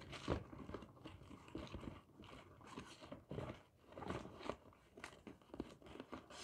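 Irregular crackling, scraping and light knocks of things being handled, as of shoes and their packaging being moved about.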